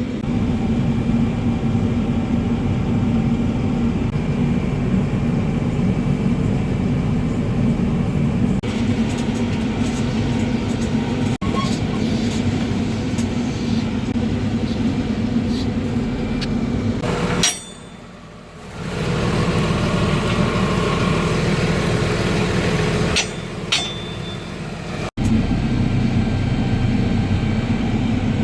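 Farm tractor engine running steadily. The sound drops much quieter for a moment past the middle, and again briefly a few seconds later.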